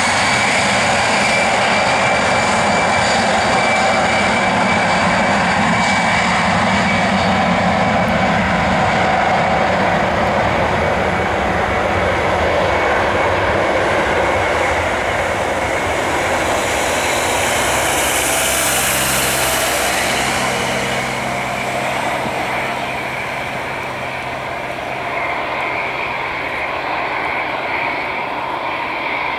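Airbus A319-111's CFM56 jet engines spooling up for the takeoff roll: a rising whine that levels off to a steady high tone about half a second in, under loud, steady jet noise. The noise fades slowly as the aircraft draws away down the runway.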